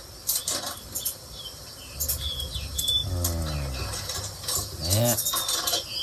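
Pet birds at a wooden play stand: scattered light taps and clicks of beaks and feet on wood and food, with a few short high chirps around the middle and again near the end.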